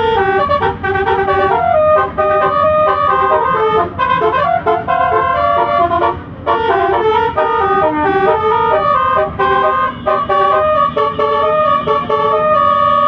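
Indonesian bus 'telolet' horn: multi-tone air horns playing a quick melody of stepping notes, with brief pauses between phrases.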